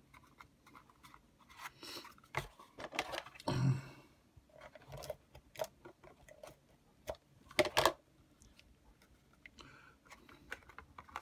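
Cardstock and patterned paper being handled, pressed together and rubbed along an edge on a craft mat: scattered rustles, scrapes and light taps, louder in a few short spells.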